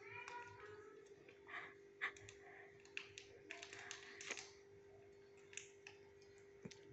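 Faint, scattered small clicks and crinkles from toddlers handling a chocolate wrapper and eating, over a steady low hum. A child makes a brief vocal sound at the very start.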